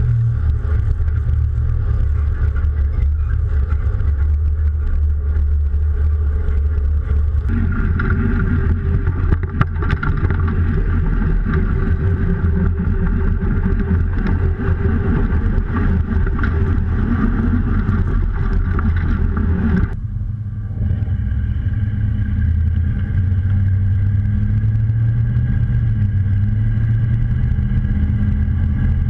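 1982 GMC 3500 crew cab pickup driving at road speed, its engine running steadily under light load with road noise. Heard from outside the truck, then from inside the cab for the last third, the sound changing abruptly at each switch.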